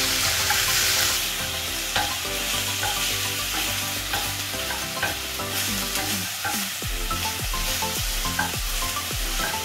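Cubes of marinated beef sizzling as they stir-fry in a non-stick frying pan. A wooden spatula scrapes and taps against the pan as it turns them.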